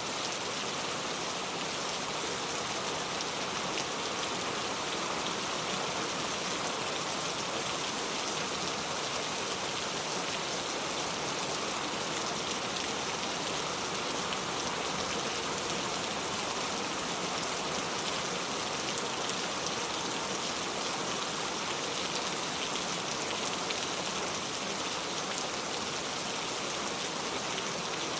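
Steady rain falling: an even hiss of many drops that holds the same level throughout.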